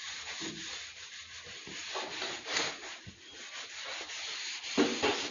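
Hand rubbing strokes across a plastic truck door panel: an irregular, hissy scrubbing that swells and fades with each stroke.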